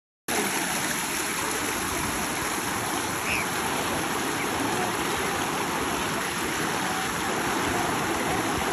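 Steady rush of shallow river water pouring over rocks, starting abruptly just after the start.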